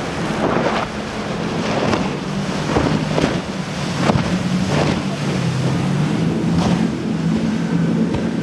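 Motorboat engine running steadily through rough inlet water, with wind buffeting the microphone and several sharp splashes as the hull hits waves.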